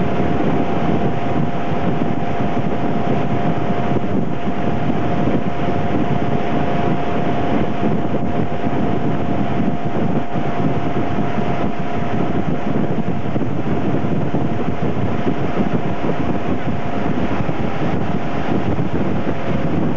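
Motorboat engine running steadily under way with a faint steady whine, mixed with wind rushing over the microphone.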